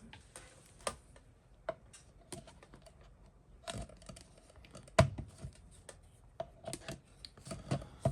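Irregular clicks and taps from test gear and probes being handled on a workbench, with one sharper knock about five seconds in.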